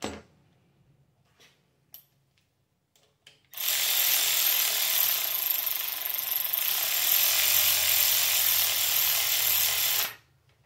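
Cordless electric ratchet running steadily for about six seconds, driving down the bolt of a stock LS rocker arm, then stopping abruptly. A few light clicks of parts being handled come before it.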